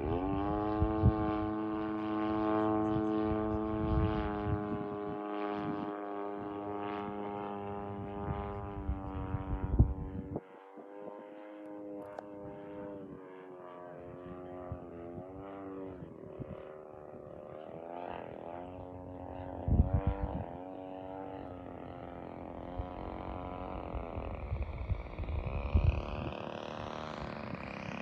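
Single-cylinder two-stroke DLE 55 gas engine and propeller of a large RC model warplane in flight. Its pitch climbs at the start and holds steady for about ten seconds, then drops and wavers up and down as the plane passes and manoeuvres, with a few short low thumps.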